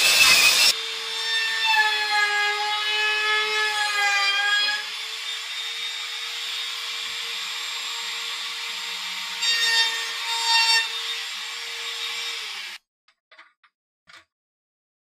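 A Makita sliding miter saw finishes a cut through wood, then a Makita trim router runs with a high steady whine as it routs along the edge of a wooden strip, its pitch sagging under load for the first few seconds. The router sound cuts off suddenly near the end, leaving a few faint clicks of a metal drawer slide being handled.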